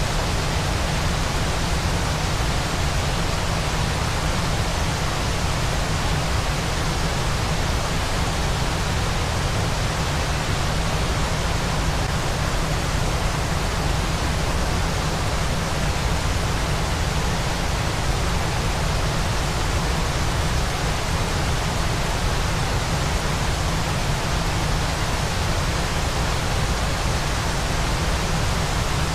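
Waterfall: falling water making a steady, even rush with no change at all.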